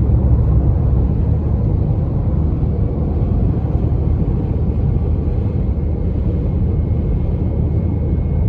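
Steady low rumble of a car driving at highway speed, heard from inside the cabin: tyre, wind and engine noise.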